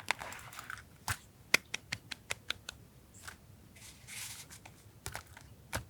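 Paper goods being handled by hand on a desk: brief rustling swishes of paper near the start and about four seconds in, with a run of sharp taps and clicks in between and a couple more near the end.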